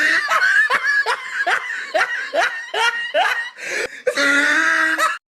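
A person laughing in a run of short, rising bursts, about two to three a second, that cuts off abruptly near the end.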